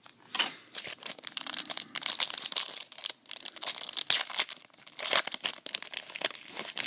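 A trading-card pack wrapper being torn open and crinkled by hand, a dense run of irregular crackling and rustling.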